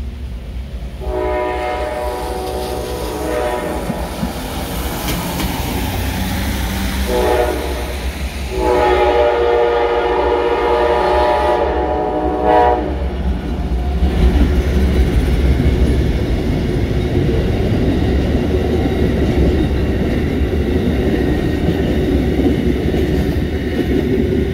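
Amtrak passenger train's horn sounding for a grade crossing: a long blast, a short one, then another long one ending about 13 seconds in. After that the train passes with a steady rumble and clatter of wheels on the rails.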